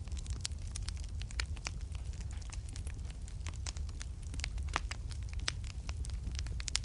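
Wood fire in a fireplace burning with a low steady rumble and frequent sharp crackles and pops.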